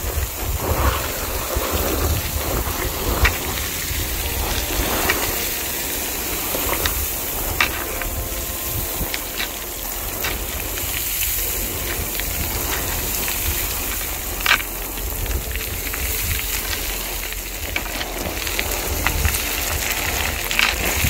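Hiking boots crunching and sliding step by step down loose scree, with gravel and rock chips rattling underfoot and a sharper click of stone now and then.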